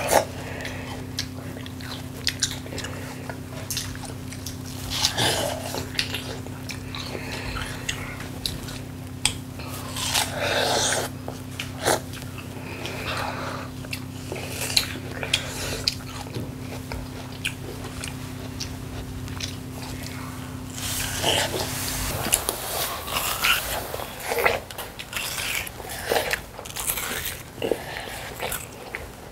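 Two children biting into and chewing juicy watermelon slices close to a clip-on microphone: repeated wet crunches and chewing. A steady low hum underneath cuts off abruptly about three-quarters of the way through.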